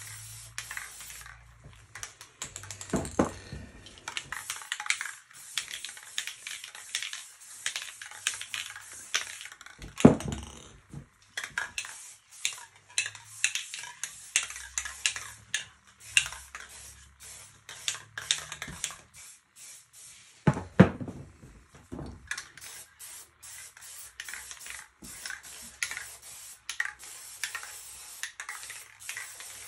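Aerosol spray paint can sprayed in many short, quick bursts of hiss, with three louder knocks in between.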